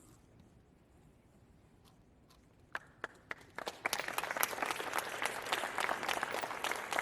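Audience applause: quiet at first, then a few scattered claps about three seconds in, building into a crowd clapping steadily from about four seconds in.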